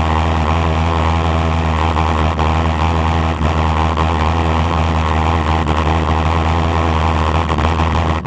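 A car engine idling loudly and steadily at one unchanging speed, with a deep, even note.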